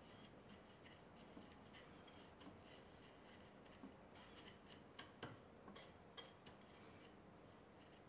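Faint rustling and a few soft clicks as a chocolate biscuit ball is rolled in shredded coconut on a plate. The clicks bunch up in the second half.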